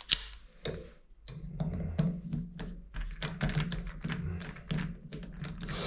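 Irregular small clicks and taps of shower valve trim parts being handled and removed by hand, over a steady low hum.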